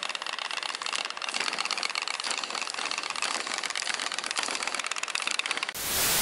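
Candle-heated toy putt-putt (pop-pop) steam boat running, its little engine giving a fast, even train of clicks as steam pulses push water out and draw it back in. Near the end this gives way to a burst of television static hiss.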